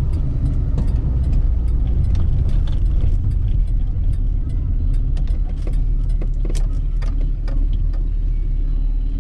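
Austin Allegro 1500's E-series four-cylinder engine and road noise as the car is driven, heard from inside the cabin: a steady low drone with scattered light clicks and rattles.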